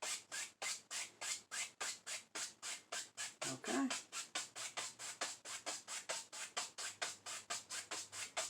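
Stiff paintbrush rhythmically dabbing and scrubbing oil paint onto canvas, a steady scratchy stroke about four times a second, with one somewhat louder stroke in the middle.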